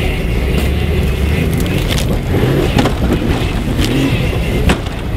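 A small off-road 4x4's engine pulling steadily at low revs as it climbs a steep rocky slope, with several sharp knocks from the vehicle working over the rocks.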